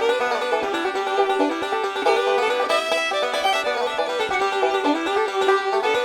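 Background music: an upbeat plucked-string tune led by banjo, in a bluegrass style, with quick picked notes.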